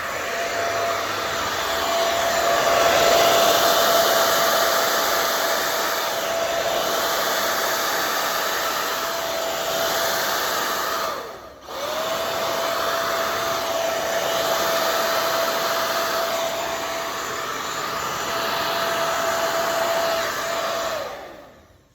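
Hand-held hair dryer blowing steadily, its motor giving a steady whine over the rush of air. About halfway through it cuts out for a moment and spins back up, then shuts off near the end, because its plug won't stay in the socket.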